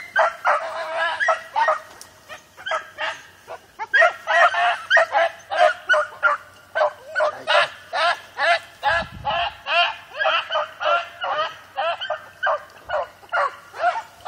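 A pack of rabbit hounds baying in full cry, many short overlapping cries about twice a second, as they run a rabbit's scent trail. The cries ease briefly about two seconds in, then pick up again.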